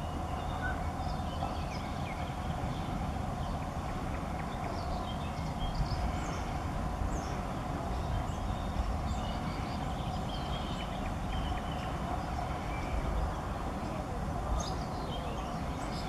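Small songbirds chirping in many short high notes and quick pitch slides over a steady low rumble and a faint steady hum.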